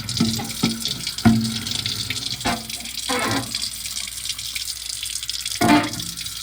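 Tap water running into a sink, with a few knocks and clatters of items being handled in the water.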